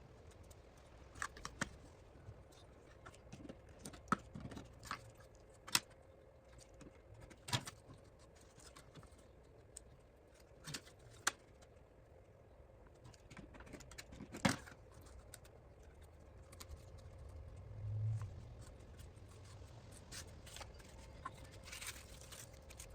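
Scattered light clicks, taps and rustles of hand work with paper birch bark, at an uneven pace; no power tool is running. A brief low hum comes in about eighteen seconds in.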